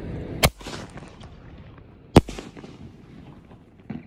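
A 5-inch canister shell firework goes off from its mortar tube. There is a sharp bang at launch, then a second and louder bang about a second and a half later as the shell bursts, followed by a few faint crackles.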